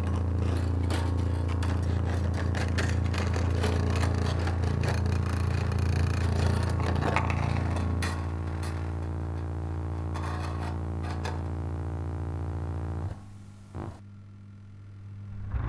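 Experimental electric-guitar and contact-microphone noise: a low droning hum with overtones, under dense scraping and clicking on the strings. About halfway the clicks thin out, leaving the drone, which drops away sharply near the end with one brief blip.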